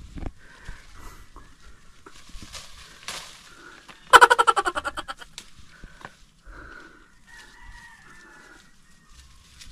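A chicken calling: a loud, rapid run of harsh notes about four seconds in that fades over about a second, and a fainter call a few seconds later.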